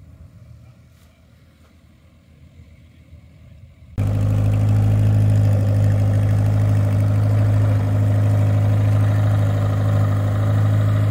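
A faint low rumble, then about four seconds in a loud engine sound starts abruptly and runs at a steady speed with a strong low hum, no revving.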